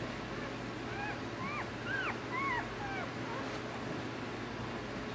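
Newborn American Pit Bull Terrier puppies squeaking and whimpering: a run of short, high squeaks, each rising and falling in pitch, over a steady low hum.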